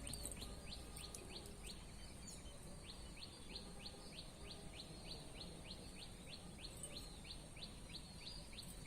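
A bird calling steadily: a short falling chirp repeated evenly about four times a second, faint over low outdoor background noise.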